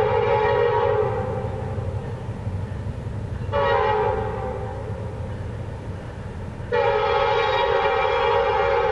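Air horn of an approaching Norfolk Southern freight locomotive, sounding in blasts: a long blast that ends about a second in, a short blast around three and a half seconds, then another long blast from about seven seconds, over the steady rumble of the train.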